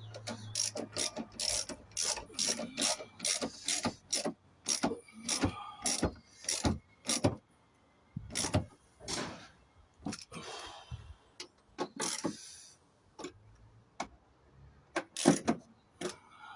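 Ratchet wrench clicking in quick runs, with separate metal clicks and knocks, coming in irregular bursts with short pauses between.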